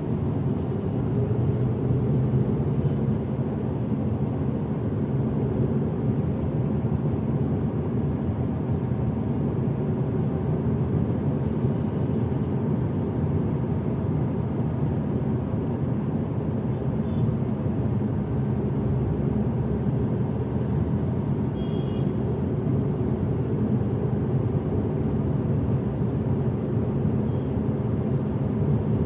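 Steady low rumble of a car driving on city streets: engine and tyre noise with surrounding traffic.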